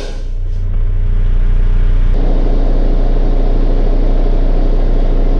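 Truck engine running steadily with a low, even hum; its sound fills out slightly about two seconds in.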